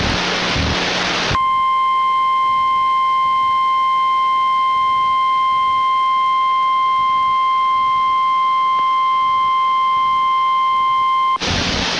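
Emergency alert tone ahead of a tornado warning: one steady, high-pitched beep, typical of the NOAA Weather Radio 1050 Hz warning alarm. It starts about a second and a half in, holds for about ten seconds and cuts off suddenly. A loud steady hiss comes before and after it.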